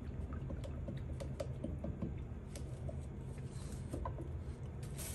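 A paintbrush being rinsed in a plastic cup of water, making light, irregular taps and clicks against the cup as the blue acrylic paint is washed out of it.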